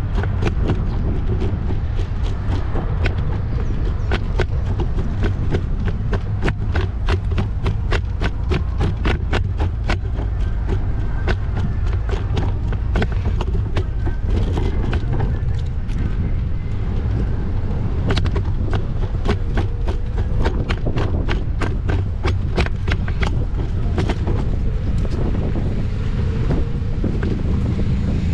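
Riding noise from a moving bike: a steady deep wind rumble on the microphone, with sharp clicks or rattles a few times a second.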